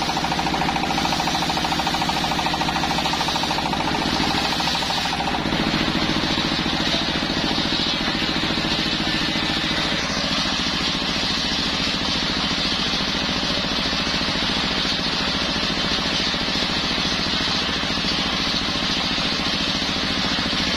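Horizontal single-cylinder diesel engine running steadily with a fast, even knocking beat, driving a circular saw blade that rips through a teak log, with a steady high sawing noise over the engine. The sound shifts about five seconds in and again about ten seconds in.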